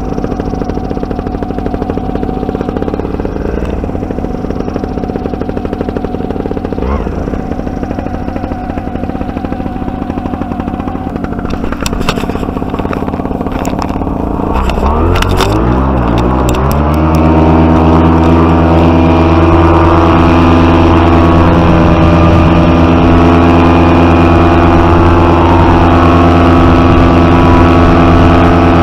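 Paramotor engine running steadily at low throttle, then about fifteen seconds in revved up with a rising pitch and held steady at high power for take-off, noticeably louder.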